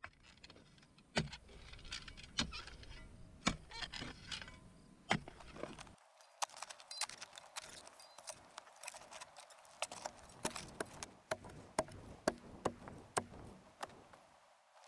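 Steel spade digging a planting hole in stony, slate-filled ground: irregular sharp clinks of the blade striking rock, about one or two a second, with scraping and loose soil and stones being shovelled between them.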